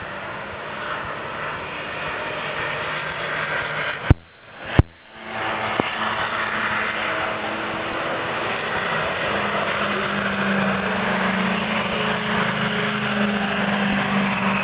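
American muscle car's V8 engine running steadily, cut by a brief drop-out with sharp clicks about four seconds in; a steadier low engine note comes in from about ten seconds.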